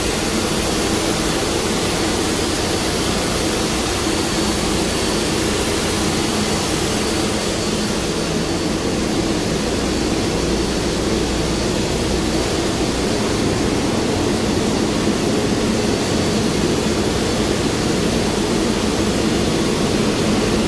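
Steady whirring hum of a New York City Subway 4 train standing at the platform with its doors open, its onboard equipment and ventilation running. The higher hiss eases a little about a third of the way through.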